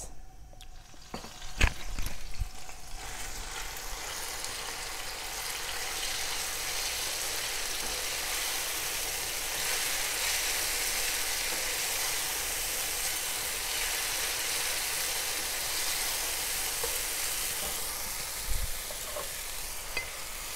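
Blended tomato mix frying in hot palm oil in an enamelled cast-iron pan, stirred with a wooden spoon. A sharp knock comes about two seconds in, then the sizzle builds and holds steady.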